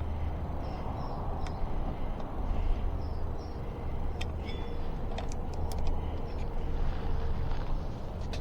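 A few light, sharp clicks of hand tools and brake parts being handled, over a steady low background rumble.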